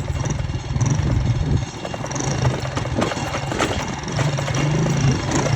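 An engine running with a steady low hum that fades about one and a half seconds in and comes back near the end.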